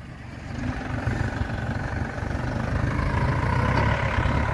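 Compact tractor engine running steadily and low-pitched, growing louder over the first second as the tractor drives closer; a faint higher whine joins about three seconds in.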